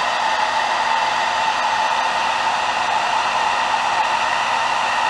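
Hand-held hair dryer running steadily on high, blowing hot air to dry and heat-set freshly airbrushed paint on a crankbait so the thin paint won't run. A constant rush of air carries a faint steady motor hum.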